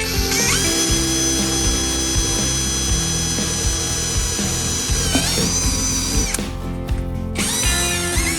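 Electric power tool motor spinning up to a steady high whine, its pitch dipping briefly about five seconds in, then stopping and starting up again near the end. A music bed plays underneath.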